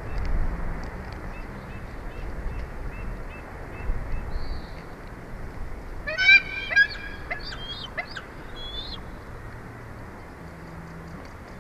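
Bald eagle calling: a quick series of loud, high, piping notes about six seconds in, after a faint run of evenly spaced chirps, over low wind noise on the microphone.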